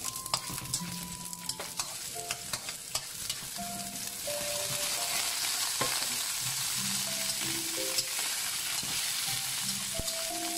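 Hot oil sizzling in a wok as pieces of green and red pepper and pan-fried grouper are stir-fried with a metal slotted spatula, which clicks and scrapes against the pan. The sizzle grows louder about four seconds in.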